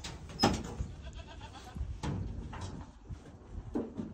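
A farm animal bleating a few times in short wavering calls, with a single sharp knock about half a second in.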